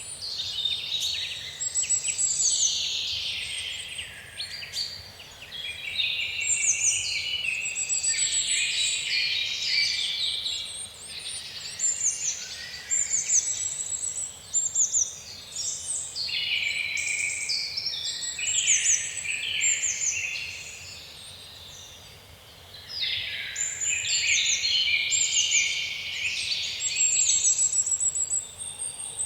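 Many birds chirping and trilling together in a dense, overlapping chorus, with a short lull about three-quarters of the way through.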